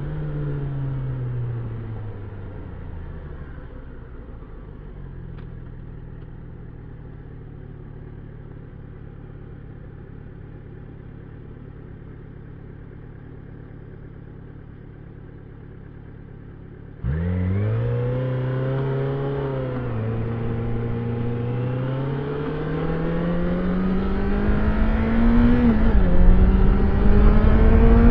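Yamaha XJ6 Diversion F's 600 cc inline-four on its stock exhaust: the revs fall away to a steady idle, and after about thirteen seconds it pulls away suddenly louder, revving up through the gears with a couple of shifts. It is at its loudest near the end.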